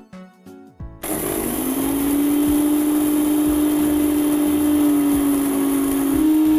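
Electric kitchen mixer grinder switched on about a second in, dry-grinding roasted fennel and nigella seeds. Its motor rises in pitch as it spins up, then runs steadily, its pitch stepping up a little near the end.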